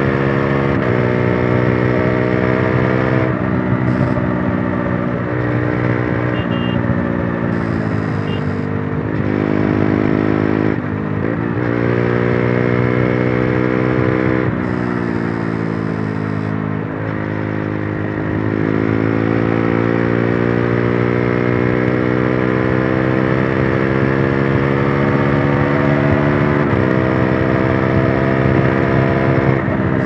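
Bajaj RS200's single-cylinder engine running under way, its revs rising and falling with several sudden steps in pitch as it shifts through the gears. A metallic rattle comes from the loose rear number plate.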